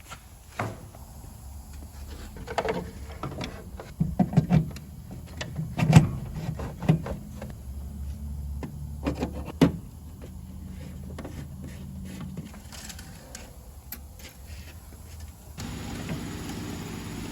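Irregular knocks, clicks and clatter of equipment being handled, loudest in the middle, over a low hum. About fifteen seconds in, a steadier hum switches on suddenly and keeps going.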